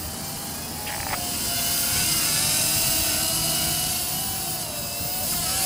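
Yi Zhan X4 quadcopter's motors and propellers whining in flight, the pitch wavering as the throttle changes, louder around the middle and easing off towards the end. The battery has reached low-voltage cutoff.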